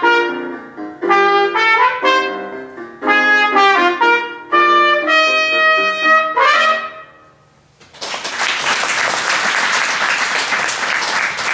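Solo trumpet playing the closing phrases of a piece, a run of separate notes ending on a held note that dies away about seven seconds in. After a second of near silence, an audience starts applauding and keeps clapping.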